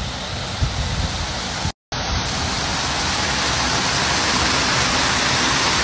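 Steady rushing noise of a hailstorm, rain and running water, with low wind thumps on the microphone in the first second and a half. After a brief dropout just under two seconds in, it comes back as an even, louder rush.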